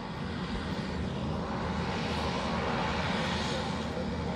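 Hawker 900XP business jet's twin turbofan engines running on the runway after landing, heard from a distance as a steady jet noise that swells a little toward the middle.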